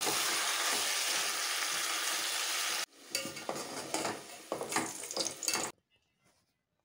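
Chicken pieces frying in oil in a metal pot, sizzling steadily as they are stirred with a metal spoon. About three seconds in it cuts off suddenly, followed by scraping and clinking from a wire skimmer turning fried potatoes in a pot with lighter sizzling. Near silence near the end.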